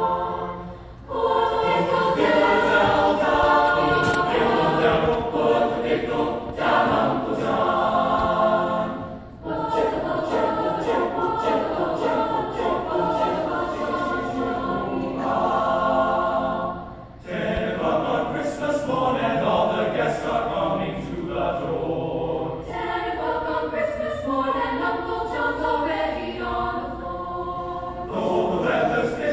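Mixed-voice choir singing in parts, with short breaks between phrases about a second in, about nine seconds in and about seventeen seconds in.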